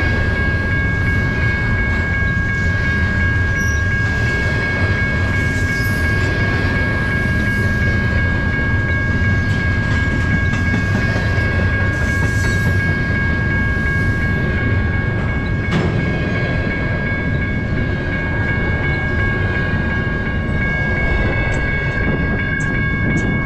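Double-stack intermodal freight cars rolling steadily past a grade crossing: a continuous low rumble of steel wheels on the rails, with steady high-pitched tones held over it.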